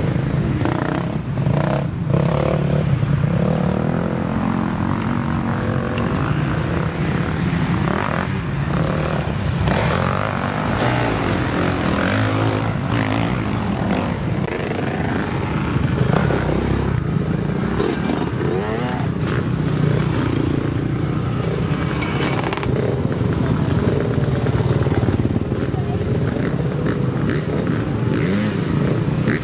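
Motocross dirt bikes revving and passing one after another on a dirt track, their engines repeatedly rising and falling in pitch as the riders open and shut the throttle and change gear.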